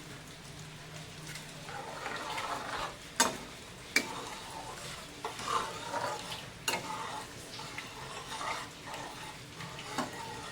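Food sizzling in a cooking pot while a spatula stirs it, with a few sharp knocks of the metal spatula against the pot.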